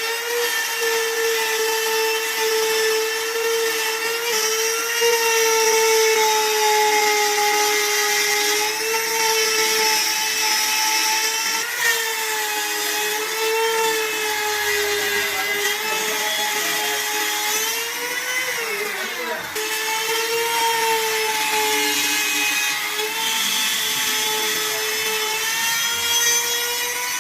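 Handheld router running at high speed and cutting into a sheet: a steady high motor whine whose pitch sags slightly as the bit takes load, dipping most clearly about two thirds of the way through before recovering.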